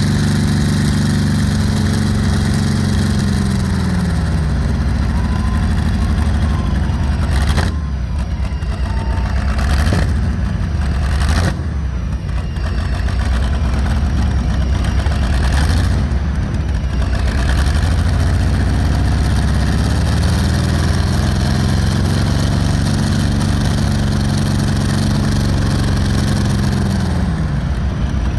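V-12 Allison aircraft engine in a pulling tractor running loud and deep. Its revs fall off twice, near the start and again near the end, and climb gently in between. A few brief sharp noises come through over the engine in the middle.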